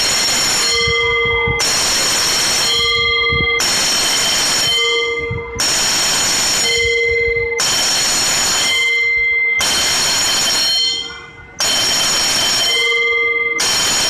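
Electric school bell, its clapper rattling rapidly against a metal gong in bursts about a second and a half long, repeated every two seconds; the gong keeps ringing through the short gaps.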